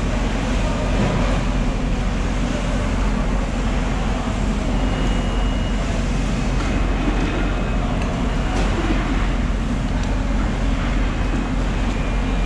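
Steady low mechanical drone with a constant hiss over it, with no pauses. A sharp click sounds once, about two-thirds of the way through.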